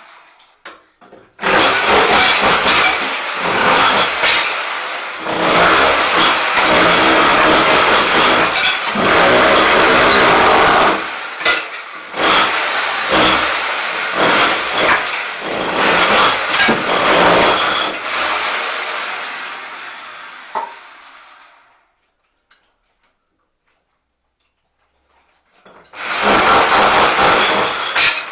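Rotary hammer chipping off ceramic shower tiles, running in loud stop-start bursts. It stops about three quarters of the way through, goes quiet for a few seconds, and starts again near the end.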